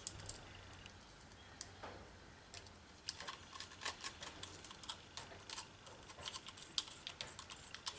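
Small screwdriver fastening the screws of a laptop hard drive into its mounting bracket: faint, irregular light clicks and ticks, coming thicker from about three seconds in.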